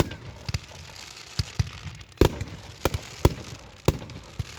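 Fireworks going off: about nine sharp bangs at irregular intervals, the loudest a little past two seconds in.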